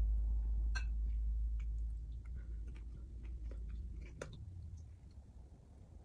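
Close-up chewing of vegetables, with scattered sharp crisp clicks from the bites over a low rumble that fades after the first couple of seconds.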